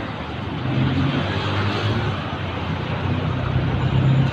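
Road traffic passing close: a motor vehicle's engine hum over the rush of tyres and traffic, growing louder toward the end.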